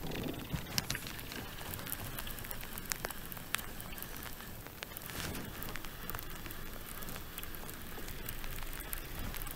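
Light rain falling: a steady hiss of drops on the water, with scattered sharp ticks of single drops landing close to the microphone.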